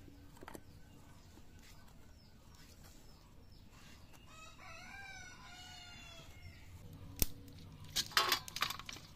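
A rooster crowing once in the middle, one long call. Near the end a sharp click, then a brief clatter of steel dishes as fish are tipped into a steel plate.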